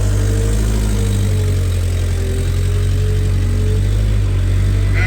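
Steady low mechanical hum of a running machine, with a fainter, slowly wavering tone above it.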